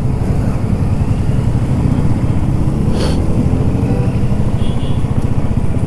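Royal Enfield Classic 350's single-cylinder engine running steadily under way, a fast even low pulse, with one short sharp click about three seconds in.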